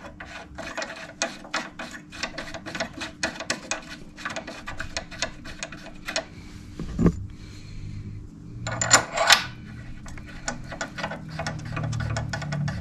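Hands-on tool work at a motorcycle's front brake: a quick run of short clicks and scrapes, about four or five a second, broken by a dull thump about seven seconds in and a louder scraping burst about nine seconds in.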